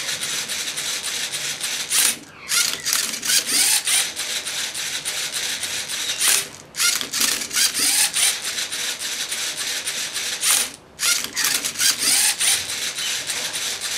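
LEGO Mindstorms NXT servo motors and gear trains whirring as the MindCuber robot turns its basket and tilts the Rubik's Cube, in stretches of a few seconds with brief pauses about 2, 6.5 and 11 seconds in.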